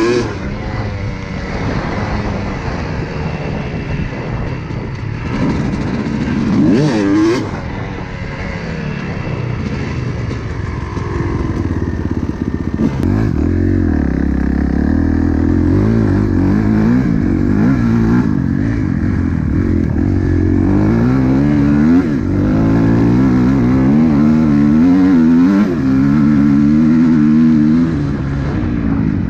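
Kawasaki KX250 dirt bike's single-cylinder two-stroke engine under way off-road, heard from on board, its revs rising and falling with the throttle all through, with quicker, busier up-and-down revving in the second half.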